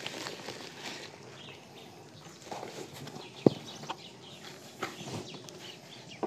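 Soft rustling as coco peat is handled in a woven plastic sack and scattered onto a soil pile, with one sharp click about three and a half seconds in.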